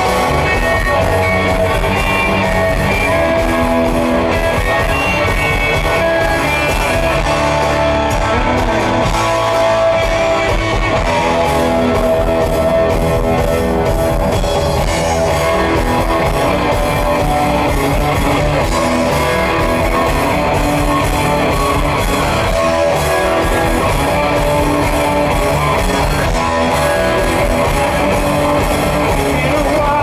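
Live rock band playing loud: electric guitars, bass guitar and a drum kit, heard from the audience. A voice singing comes in near the end.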